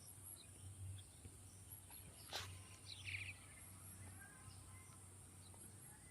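Near silence: faint outdoor ambience with a steady high hiss, a single sharp click about two and a half seconds in, and a short faint chirp just after three seconds.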